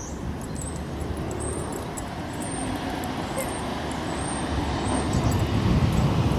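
Steady background rumble of road traffic, growing louder near the end, with a few faint, short, high chirps.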